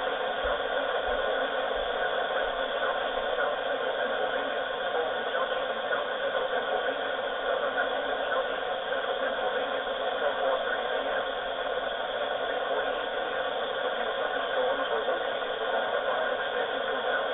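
Steady radio static: an even hiss with no voice or alert tones in it.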